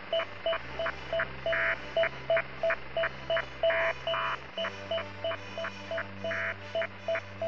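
Electronic music: quick, evenly spaced beeps, about four a second, over a low bass note that changes pitch about every four seconds, with a short burst of hiss every couple of seconds.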